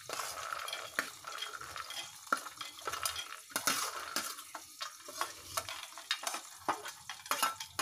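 Steel spoon scraping and clinking against a steel plate and a steel mixer-grinder jar as roasted peanuts and onion pieces are scooped in, many short irregular clinks. A soft frying sizzle runs underneath.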